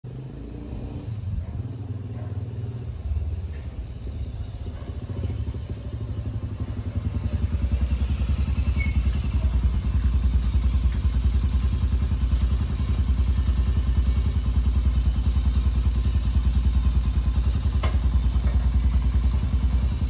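Mash Cafe 400 motorcycle's single-cylinder engine, getting louder over the first several seconds as the bike rides up, then idling with a steady, even beat.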